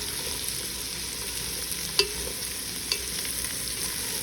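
Onions, green pepper and small plant-based meatballs sizzling steadily in hot coconut oil in a pot. Two light clicks, about two and three seconds in.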